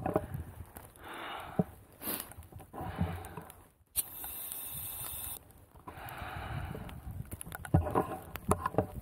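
Portable canned-oxygen canister releasing a steady hiss for about a second and a half, about four seconds in, as it is inhaled through its mask. Around it come heavy breaths and the clicks of the canister and mask being handled.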